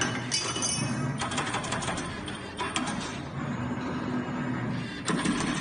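3D CNC wire bending machine running, with a low hum under irregular mechanical clicks and clacks.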